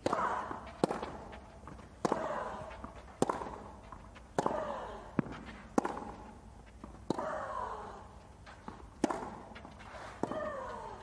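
Tennis rally: a serve, then racquets striking the ball about every second, about ten sharp hits in all. Several hits are followed by a player's loud grunt that falls in pitch.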